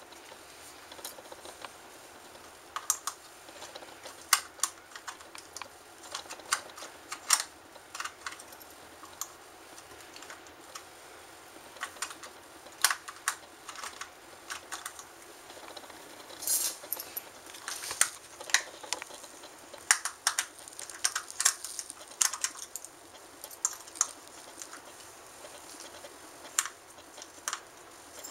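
Irregular small clicks and scrapes of a tool working at the screws in the deep holes of an Xbox 360 wireless controller's plastic shell, with quick clusters of clicks here and there.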